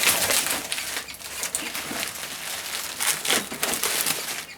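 Packing material rustling and crinkling in irregular bursts as it is handled during unboxing.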